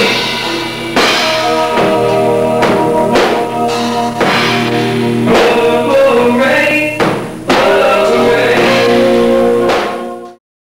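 Rock band playing: a man singing over electric guitar, bass and drum kit. The music cuts off suddenly near the end.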